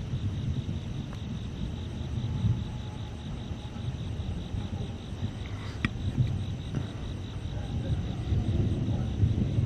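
Thunder from frequent lightning rolling in a low, uneven rumble that grows louder near the end, over steady pulsing chirps of night insects such as crickets.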